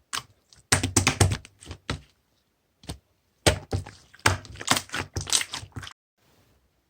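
Bursts of rapid sharp clicks and taps in quick clusters, stopping about six seconds in.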